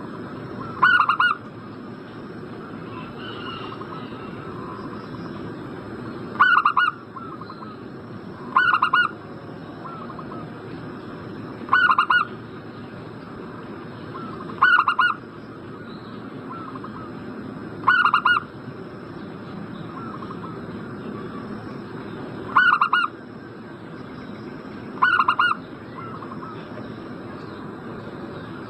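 Zebra dove (perkutut) cooing: short bursts of a few quick notes, repeated eight times a few seconds apart, over a steady background hiss.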